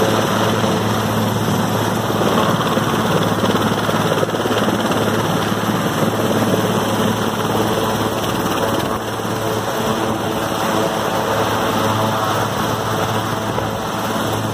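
Large helicopter hovering low and descending, its rotor and engines making a steady loud drone with a strong low hum.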